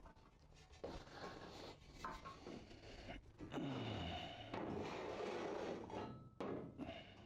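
Steel pieces being handled and slid across steel plates: a few knocks, then a longer stretch of scraping from about halfway through.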